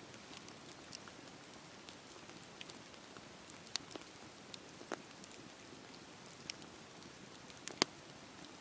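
Wood fire burning with a soft steady hiss and scattered sharp crackles and pops, two of them louder, about a third of the way in and near the end.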